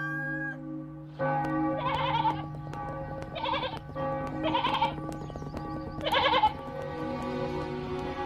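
Sheep bleating four times, each bleat about half a second long, over background music with sustained tones.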